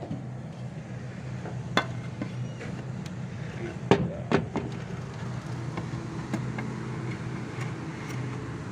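A few sharp knocks and clicks from a glass window and its frame being handled, the loudest about four seconds in, over a steady low hum.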